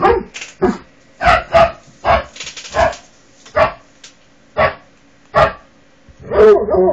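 Dog barking repeatedly: about ten short, loud barks at irregular intervals, with a longer, wavering bark near the end.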